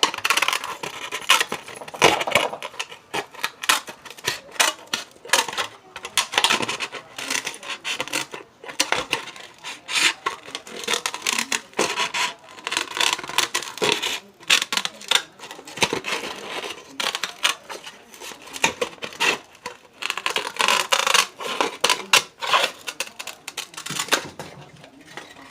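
A brittle plastic bowl being cut apart with scissors, the plastic cracking and snapping in quick irregular clicks that come in spells, loud and noisy.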